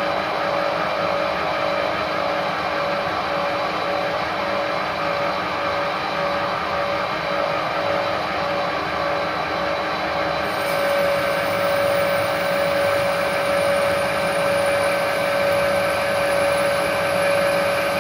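Stanko 1A616 lathe running with the spindle turning: a steady whine over dense machine noise. About ten seconds in the whine grows a little louder and a faint high-pitched whine joins it.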